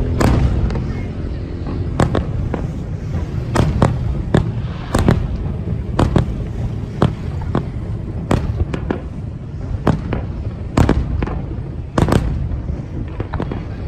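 Fireworks display: aerial shells exploding in sharp bangs at irregular intervals, about one or two a second, over a steady low rumble.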